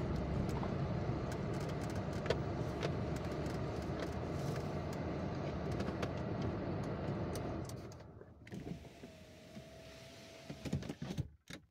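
Car engine and road rumble heard from inside the cabin as the car rolls to a stop, then the engine is switched off about eight seconds in. A faint steady tone follows briefly, and a few clicks come near the end.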